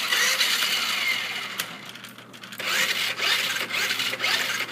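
A toy RC car's small electric drive motor whirring as it is switched on from the computer. It dies down about two seconds in and starts up again about half a second later.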